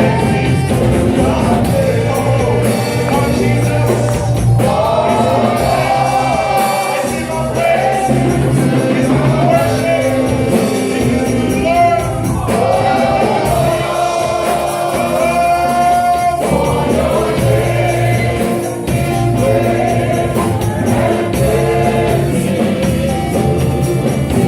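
Gospel praise and worship music: singers with a band, with a tambourine.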